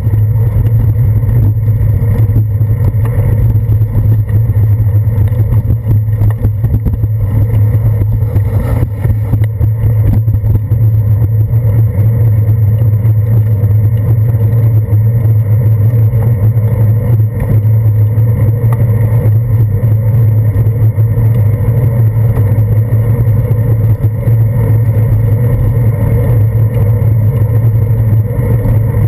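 Loud, steady low rumble and hum of a bicycle ride, picked up by a handlebar-mounted GoPro Hero 2: road vibration and wind noise as the bike rolls along a wet paved path.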